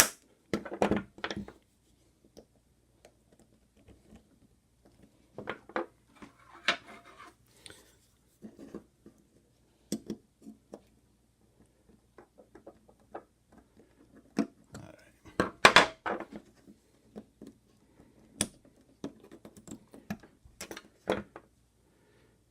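Irregular small metal clicks and knocks of a Kwikset deadbolt cylinder being taken apart by hand with small tools, with a louder clatter about two-thirds of the way through.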